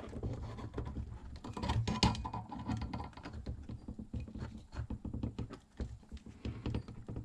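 Hands working a leather belt and its metal buckle: a run of small irregular clicks, taps and rubbing.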